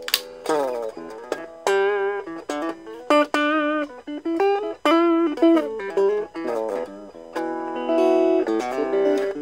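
Electric guitar played through a Raizin "Vintage Champe Box" effects pedal: picked single notes with bends and a wavering vibrato, then ringing chords over the last two seconds or so.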